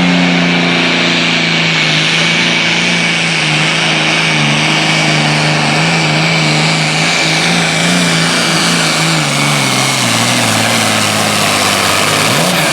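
Super Farm pulling tractor's diesel engine running flat out on a pull, its note falling gradually over about ten seconds as it works against the weight of the sled. Near the end the note briefly sweeps up.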